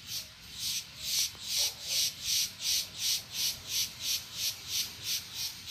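An insect buzzing in high-pitched pulses, about three a second, steady in rhythm and growing stronger about a second in.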